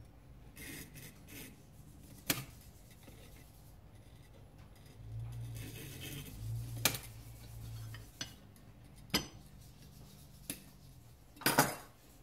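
Faint scratching of a steel point scribing bevel guidelines through layout fluid on a steel knife blank, with several sharp metal clicks as the tools and blade are handled.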